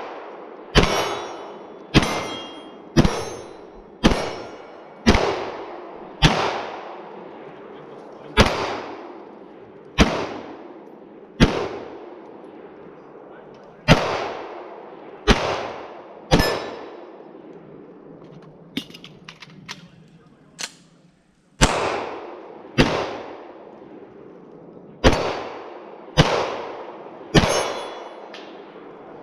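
Pistol shots fired at steel targets in a steady string, about one a second, each with a long echoing tail. Around the middle there is a short break with a few light clicks before the firing resumes.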